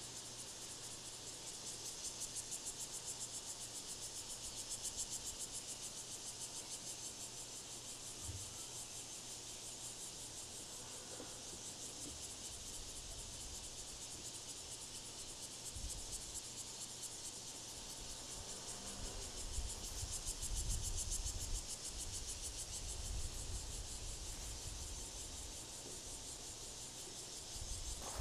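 A steady, high-pitched insect chorus with a fast pulsing texture, with irregular low rumbles in the second half.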